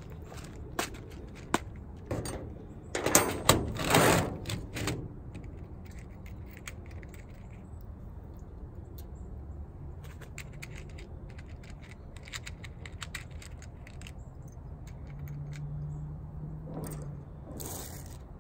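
Plastic organizer case of crimp wire terminals clattering as it is handled and opened, the small terminals rattling inside, then light scattered clicks as terminals and wires are picked out and handled.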